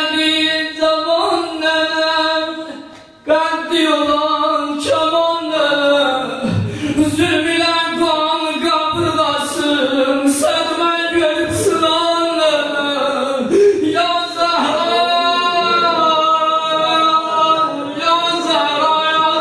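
A man singing a Muharram mourning lament unaccompanied into a microphone, in long wavering held lines, breaking briefly for breath about three seconds in.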